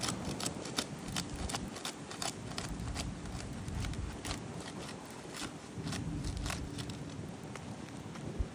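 Asphalt roof shingles being pried up with a sharp flat tool to break their adhesive seal strips: irregular crackling and snapping clicks as the seal tears and the tool scrapes against the shingles.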